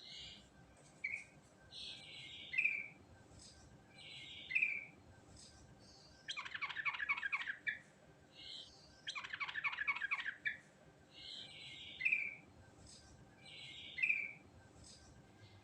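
Yellow-vented bulbul (trucukan) singing: short bright two-part phrases repeated every second or two, broken twice by a longer fast chattering trill.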